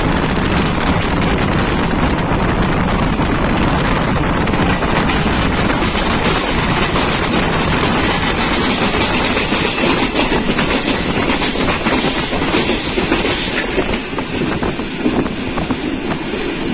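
Passenger train running along the line, heard from on board a coach: a steady, loud rumble of wheels on the track with rushing air.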